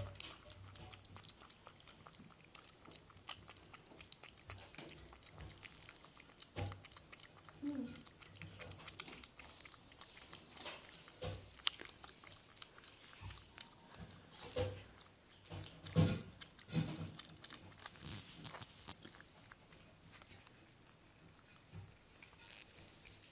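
A cat chewing and eating its food: many small irregular clicks and smacks, with a few louder knocks about two-thirds of the way through.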